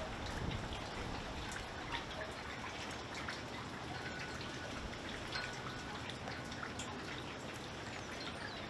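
Light rain pattering: irregular drips and small taps over a steady hiss.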